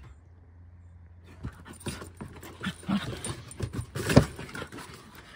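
A French Bulldog, a Rat Terrier and a Mudi play fighting: panting, snorting and scuffling, starting after a quieter first second, with one loud knock about four seconds in.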